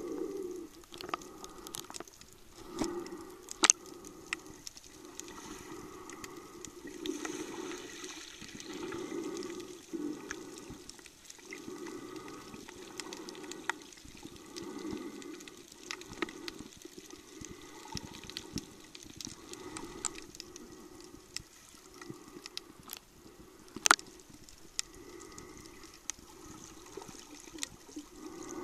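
Muffled underwater sound of a swimmer moving in the sea, picked up by a submerged camcorder: slow, repeating swells of water movement with scattered sharp clicks, two of them louder, about four seconds in and later on.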